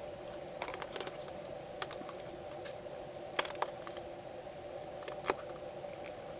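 Sticky, wet clicks and squelches of hands working into raw chicken, performed as the sound of fingers in an open wound, with a few louder wet snaps near the middle and late on, over a steady hum.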